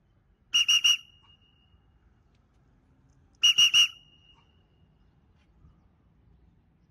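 A hand whistle blown as a recall signal for a free-flying pet bird: quick sets of three short high toots, twice, about three seconds apart.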